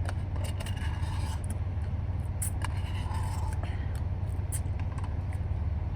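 Spoon scraping and clicking against the inside of a Blizzard cup while the ice cream is eaten, in short irregular scrapes, over a steady low rumble.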